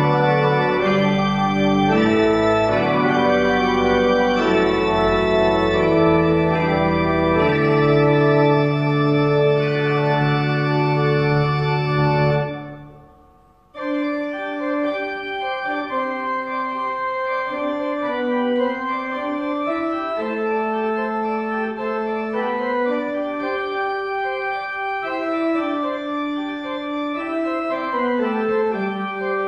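Church organ playing a hymn processional in full chords with deep pedal bass notes. About twelve seconds in it breaks off and dies away in the room's reverberation. After a brief gap it resumes more softly on a lighter registration without the pedal bass.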